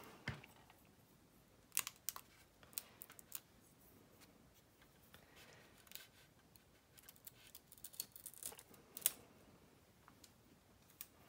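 Masking tape being pressed and smoothed onto a plastic model aircraft's nose with tweezers: faint scattered clicks and crinkles, the loudest click about nine seconds in.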